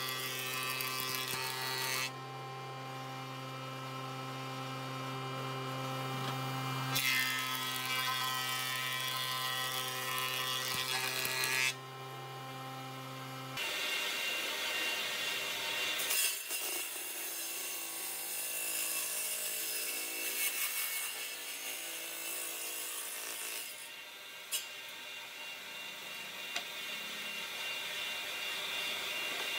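Hitachi A-1500A 3-in-1 woodworking machine running, its motor humming steadily while boards feed through the planer in two long spells of loud cutting noise. About halfway through, the hum gives way to the machine's table saw section running.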